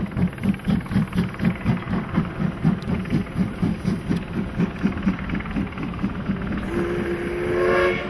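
C11 tank steam locomotive working up a grade, its exhaust chuffing in a steady beat of about four a second. Near the end its steam whistle sounds, growing louder until it cuts off.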